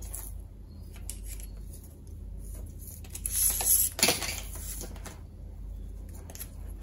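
Insulated wire being wound around a plastic pipe coil former by hand: rustling and scraping as the wire is pulled through, with a louder scrape a little after three seconds in and a sharp click about four seconds in.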